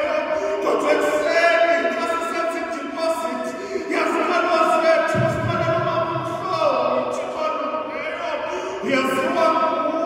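A man singing unaccompanied into a microphone, holding long notes that change pitch every second or two.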